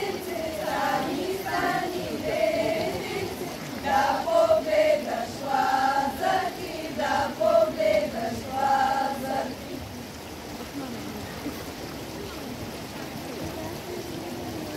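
A group of girls singing a lazarki ritual song together in a chant-like folk style. The song stops about nine seconds in, leaving the rush of a shallow stream under the bridge.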